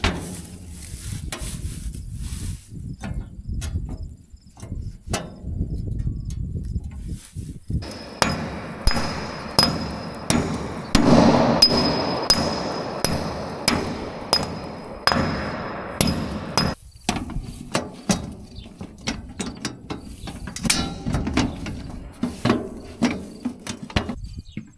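Sledgehammer blows beating concrete off, a long run of irregular strikes, with a high ringing tone through the middle stretch.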